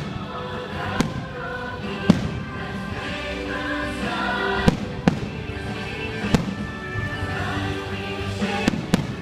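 Fireworks shells bursting in sharp bangs about every one to two seconds, about seven in all, over the fireworks show's music playing from loudspeakers.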